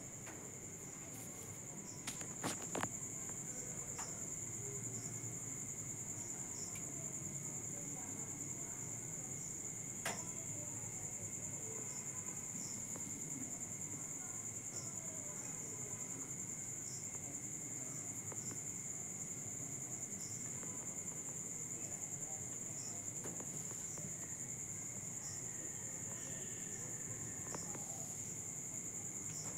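Crickets trilling steadily at night, one continuous high-pitched chirring, with a few faint clicks about two seconds in and again near ten seconds.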